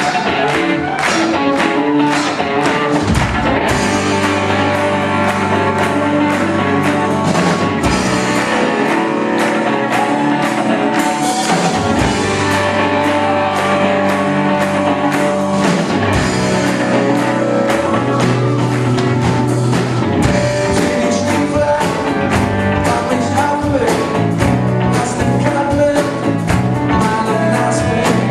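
Live rock band playing: electric guitars, bass and drum kit over a steady beat.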